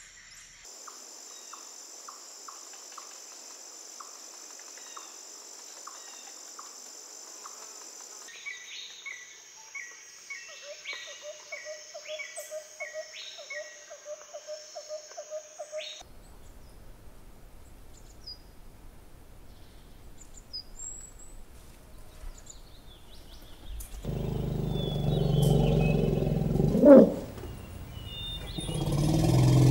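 Wild bush ambience. First a steady high insect buzz with faint chirps, then scattered bird chirps over a fast, evenly repeated call. From about two-thirds of the way in, a loud low noise takes over, with a sharp call rising in pitch near the end.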